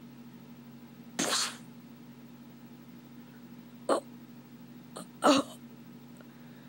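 Gunshots imitated with the mouth: four short breathy bursts, a longer one about a second in and three sharper ones between about four and five and a half seconds in, over a steady low hum.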